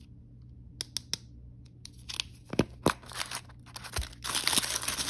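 Sharp clicks and snaps as a plastic L.O.L. Surprise ball is handled and opened. About four seconds in, a pink plastic wrapper is pulled open with continuous crinkling. A low steady hum runs underneath.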